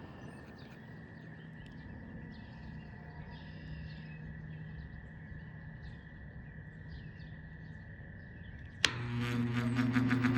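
Mostly quiet background with faint chirps. About nine seconds in there is a sharp click, and a 20-inch high-velocity floor fan starts up: its motor hums and the sound grows louder as it gains speed.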